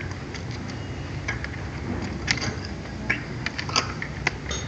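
Irregular light plastic clicks and taps as hands press on and handle a laptop keyboard.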